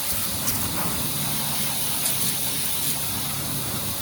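Water spraying steadily from a hose nozzle, rinsing the scrubbed aluminum hull of a drift boat.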